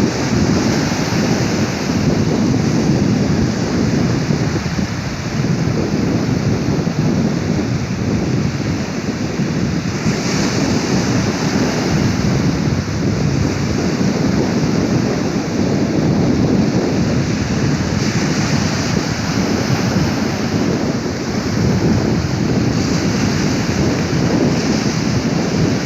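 Sea surf: waves washing ashore in a steady, loud rush that swells and eases slightly now and then.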